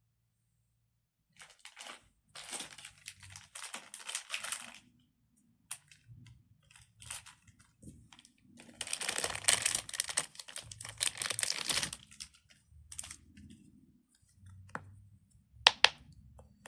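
Crinkly plastic being handled and rustled in two long stretches, with lighter rustling between and two sharp clicks near the end.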